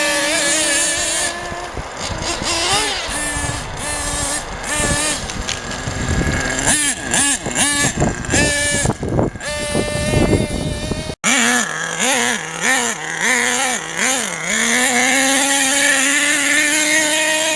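Small nitro glow engine of an RC monster truck, high-pitched and revving up and down repeatedly in short blips and longer pulls, with an abrupt cut about eleven seconds in before the revving goes on.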